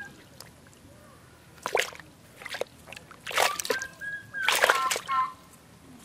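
Live freshwater fish thrashing in a bucket of shallow water, splashing and sloshing in several short bursts, the longest about three seconds in and another a little over four seconds in.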